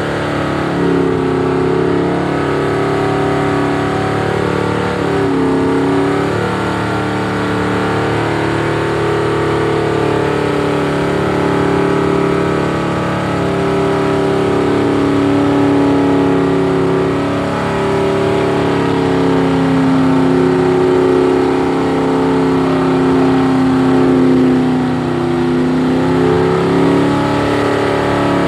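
Car engine revving and held at high revs, its pitch wavering up and down.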